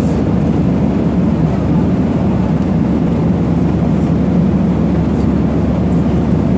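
Steady low drone of an airliner's cabin noise heard from inside the passenger cabin, with no change in level.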